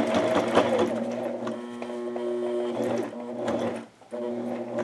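Electric sewing machine stitching a rank patch onto a patrol cap: motor hum with rapid needle ticking. It stops briefly about four seconds in, then runs again for a moment.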